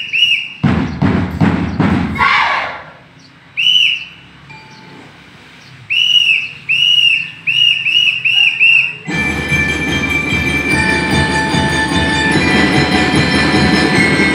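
Short blasts on a whistle giving signals, with a brief burst of drums about a second in. Then, about nine seconds in, a drum and lyre corps starts playing: bell lyres ringing over the drums.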